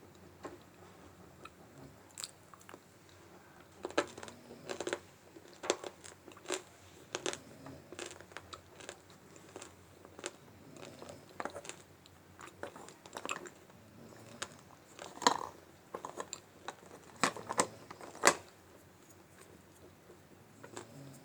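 Close-up crunching and chewing of dry multani mitti (fuller's earth clay), with irregular sharp crunches several times a second. The crunching starts about two seconds in and stops a few seconds before the end.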